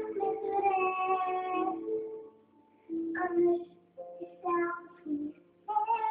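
A young girl singing solo, holding long notes, breaking off about two seconds in, then a few short notes before another long held note near the end.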